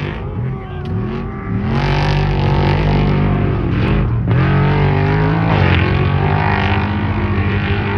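Off-road race truck engines revving hard, their pitch swinging up and down, then growing louder and steadier about a second and a half in, with a brief drop in pitch around the four-second mark.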